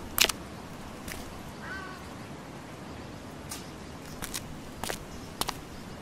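Footsteps scuffing on a gritty concrete path: a few short, sharp steps, the loudest right at the start and several more in the second half, over a steady outdoor hiss. A short bird chirp comes about two seconds in.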